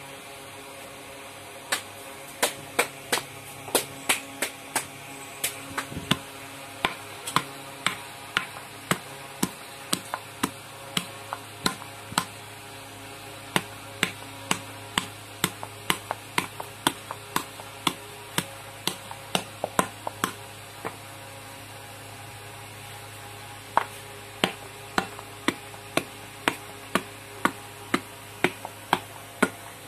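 Wet clay being slapped and patted by hand against clay on a slab: sharp slapping knocks about two to three a second. They stop for a few seconds about two-thirds of the way through, then start again.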